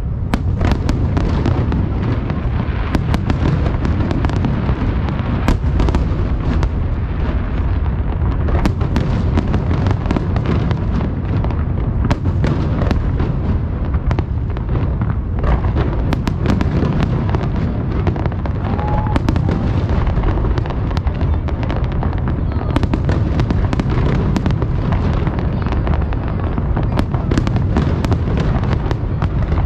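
Aerial fireworks display: a dense, continuous barrage of shell bursts, many sharp cracks over a steady low rumble.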